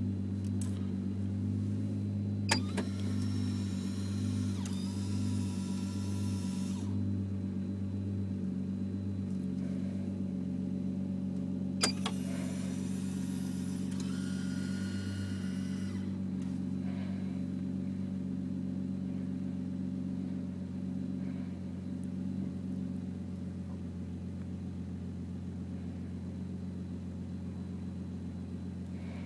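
2009 Dodge Charger idling with a steady low hum, heard inside the cabin. Twice, a click is followed by about four seconds of whirring from a small electric motor: the motorized dash bezel moving the mounted iPad.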